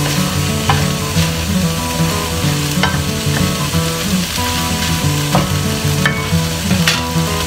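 Cabbage sizzling as it is stir-fried in a non-stick frying pan, with a wooden spatula scraping and knocking against the pan every second or so.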